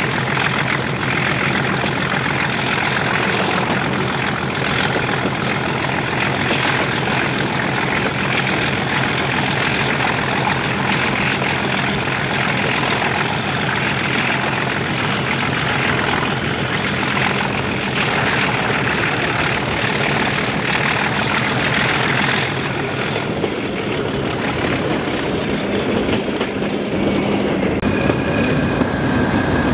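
Class 37 diesel locomotive's English Electric V12 turbocharged engine working hard under power, with the high turbocharger whistle over the engine note. Well over halfway through, the power eases and the turbo whistle falls away in pitch.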